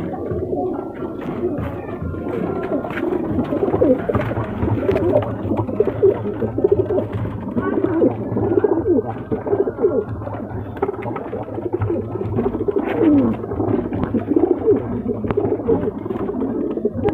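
Many Sherazi pigeons cooing in a breeding loft, their low calls overlapping without a break.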